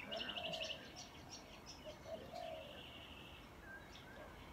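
Birds calling: a quick rapid trill near the start, scattered short high chirps, and a longer buzzy call about halfway through, with a few lower short notes underneath.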